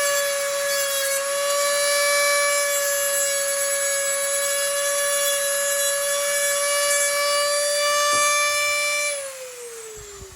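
Dremel rotary tool with a thin cut-off wheel running at a steady high whine while grinding down an aluminum part. Near the end it is switched off, and its pitch falls as it spins down.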